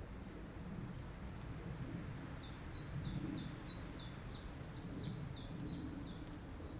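Forest ambience: a steady low wind rumble, with faint scattered bird chirps. About two seconds in, a bird sings a run of about a dozen high notes, each sliding downward, about three a second, stopping about six seconds in.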